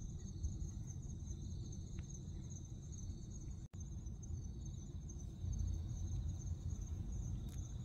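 Insects chirring in a steady, high-pitched pulsing trill over a low background rumble.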